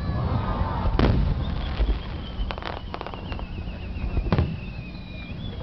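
Aerial fireworks shells bursting: a heavy bang about a second in, a quick crackle of sharp reports in the middle, and another bang near the end. Through the second half runs a high, wavering whistle that slowly falls in pitch.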